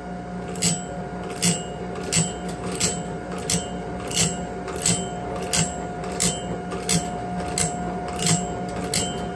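Sawmill band-blade sharpener running: its electric motor and grinding wheel give a steady whine. The automatic feed advances the blade one tooth at a time, and the wheel grinds each gullet in a short rasping stroke, about three every two seconds. It is a light cleanup pass that evens the teeth and clears debris from the gullets.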